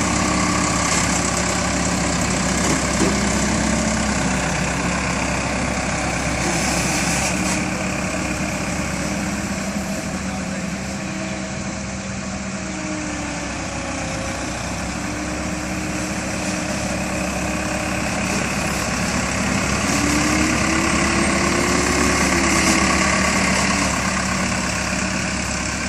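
Heavy diesel road-work machinery running steadily at a near-idle drone, its engine note drifting slightly in pitch, a little louder a few seconds from the end.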